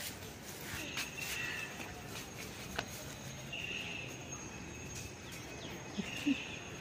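Quiet outdoor ambience: a few short high chirps over a faint steady high buzz, with scattered light clicks and a brief low sound near the end.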